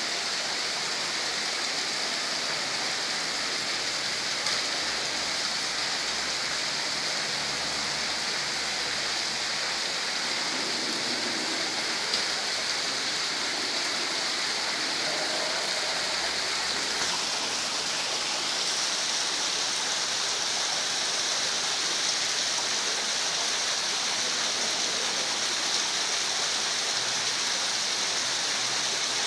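Water falling steadily over an artificial rock waterfall, a constant even splashing.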